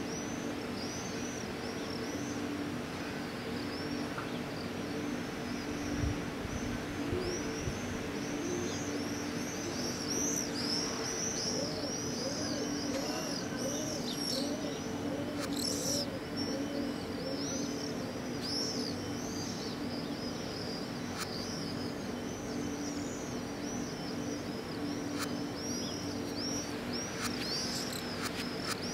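Many small birds chirping in quick, high, repeated calls throughout, with a dove cooing in a short run of notes about halfway through, over a steady low hum.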